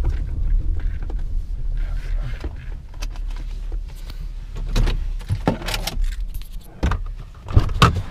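A vehicle's low rumble heard inside the cab. From about three seconds in it gives way to a run of sharp clicks and knocks, the loudest near the end: a stopped vehicle being left, with handling noise from the cab and door.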